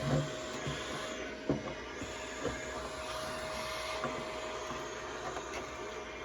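Vacuum cleaner running steadily with a constant whine, sucking loose dirt out of a toolbox. A few short knocks sound over it, the loudest about a second and a half in.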